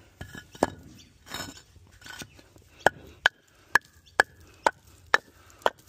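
Hammer striking a concrete paver in a steady series of sharp hits, about two a second with a short ring on each, starting about three seconds in. Before that, pavers being handled, one set down with a clunk.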